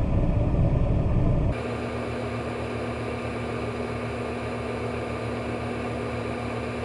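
A vehicle engine running: a low rumble that cuts off abruptly about a second and a half in. It is replaced by a steadier, quieter engine hum with a fast, even pulse.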